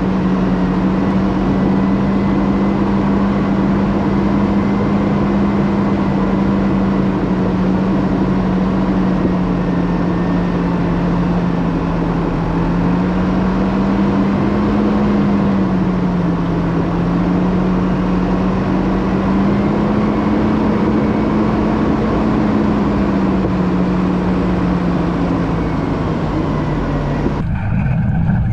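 Isuzu NPS 75/155 truck's four-cylinder turbo-diesel engine droning steadily from inside the cab as it drives, its pitch drifting slowly up and down with the revs. Near the end the sound cuts abruptly to a duller engine noise.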